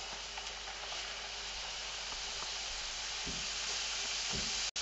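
Strips of khvorost dough deep-frying in hot vegetable oil in a pot: a steady sizzle.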